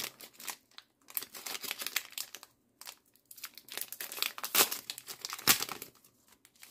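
Foil wrapper of a Pokémon Celebrations booster pack crinkling as it is handled and torn open, with two sharper rips about four and a half and five and a half seconds in.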